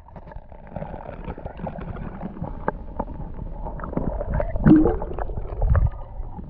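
Muffled underwater sloshing and gurgling as a hand lowers a largemouth bass into the water to release it, heard through a submerged camera, with small knocks and clicks throughout. Heavier low thumps of moving water come about four and a half to six seconds in.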